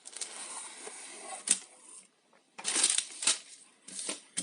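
Plastic packaging of fishing tackle crinkling and rustling as it is handled, with a sharp click about one and a half seconds in. After a short pause come a few more bursts of rustling.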